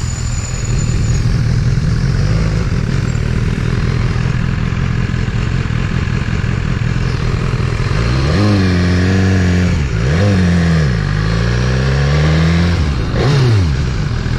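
BMW motorcycle engine under way, with wind rush. From about eight seconds in, the engine note climbs and falls several times as the revs rise and drop, with a sharp fall in pitch near ten seconds and again near the end.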